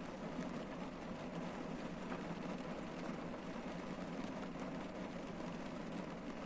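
Steady rain falling on a car's roof and windshield, heard from inside the cabin as a dull, even patter with faint drop ticks.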